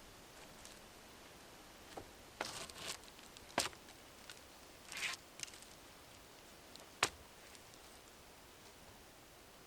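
Sticks and branches being handled: a few sharp wooden knocks, about two, three and a half, and seven seconds in, with short bursts of rustling and crackling between them.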